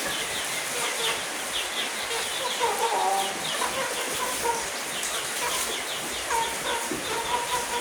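Chickens clucking as they feed, with many short, high chirps repeating several times a second over them.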